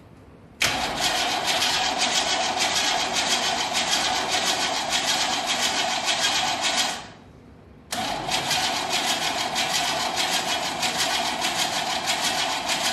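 Starter cranking a carbureted 355 small-block V8 in two long attempts of about six seconds each, with a short pause between, without the engine catching. The owner puts it down to spark plugs still soaked with fuel from a flooding carburetor.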